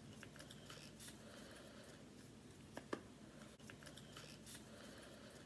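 Near silence with faint rustling and two small clicks a little before the middle: fingers working a small part out of earphone packaging.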